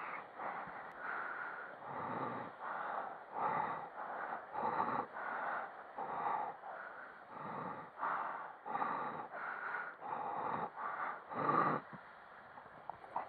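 Rhythmic, muffled swishing of water as a stand-up paddleboard is paddled over small waves, about one and a half swishes a second.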